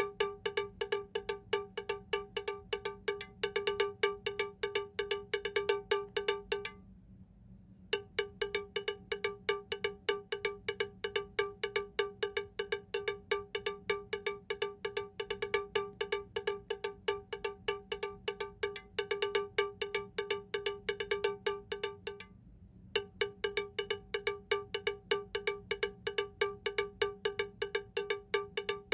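Added backing track of rapid, evenly repeated metallic strikes on one bell-like pitch, like a cowbell, with two short breaks: about a second long some seven seconds in, and a shorter one about twenty-two seconds in.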